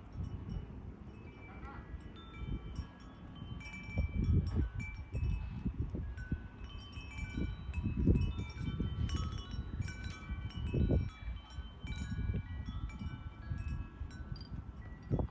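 Wind chimes ringing steadily in the breeze, many high notes struck and overlapping. Gusts of low wind rumble on the microphone come and go underneath, the strongest about halfway through.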